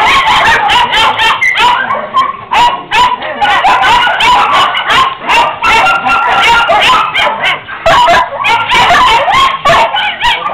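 Many kennelled dogs barking and yelping at once: a loud, continuous din of overlapping barks with no pause.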